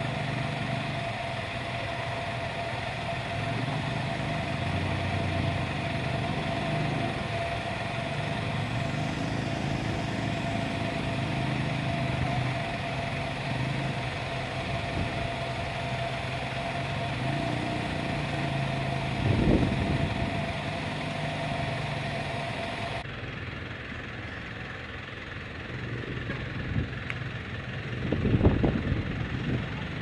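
Heavy construction machinery engines running steadily at a concrete roadworks, with a thin steady whine that stops about two-thirds of the way through and a couple of short knocks.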